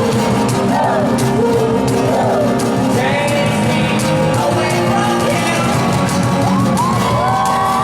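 Live rock band playing with a sung lead vocal over guitars, bass and drums, loud and continuous.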